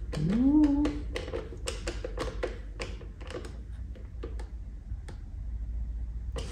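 Quick, irregular light clicks and taps from a hand driver and the race screen's fittings as Torx bolts on the screen are done up. A short rising hum from a man's voice sounds near the start.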